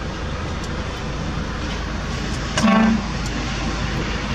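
Heavy truck engine running steadily, with one short vehicle horn toot a little past halfway through.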